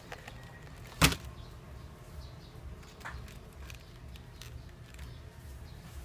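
A box of gouache paint tubes being handled: one sharp click about a second in, then a few faint ticks and taps.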